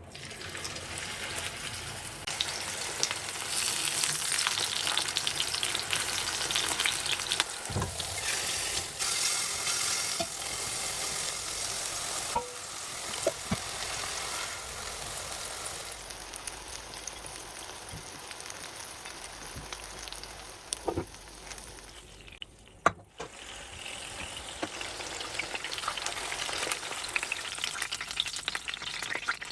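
Food frying in hot oil in a pan: a steady sizzle with a few sharp clicks and knocks, likely a utensil. The sizzle briefly drops out about three-quarters of the way through, then resumes.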